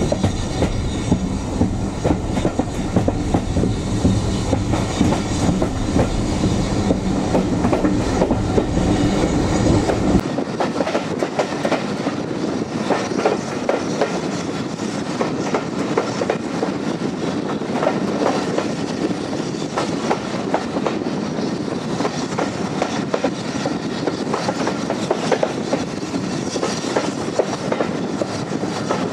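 Passenger coaches of a steam-hauled heritage train running along the line, wheels clicking over the rail joints, heard from an open carriage window. A heavy low rumble under the clicking cuts off sharply about ten seconds in.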